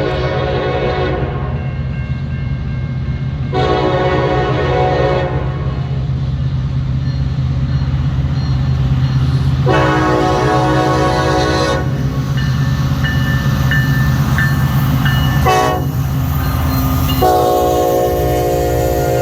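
Diesel locomotive air horn sounding the grade-crossing signal, long, long, short, long, over the steady low rumble of the locomotive engines. A blast also tails off about a second in.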